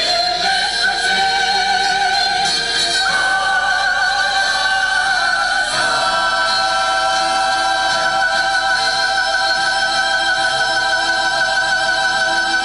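Church choir singing long sustained notes with vibrato, moving to new chords about three and six seconds in, then holding one long chord.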